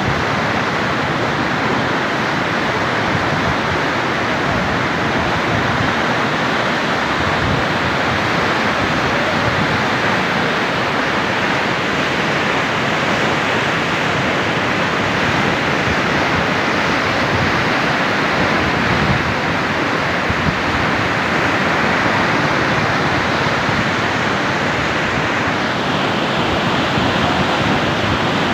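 Muddy floodwater rushing through a swollen stream in spate: a steady, loud, even rush of turbulent water with no let-up.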